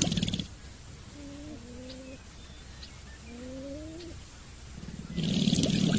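Two low, rising animal calls, each about a second long, in a quieter stretch, with a louder, busy sound cutting in at the start and again near the end.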